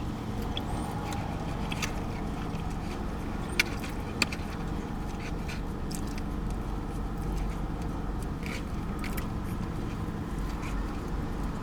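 Steady low rumble of vehicle traffic in the background, with scattered sharp clicks and crunches of someone chewing food. Two louder clicks come about three and a half and four seconds in.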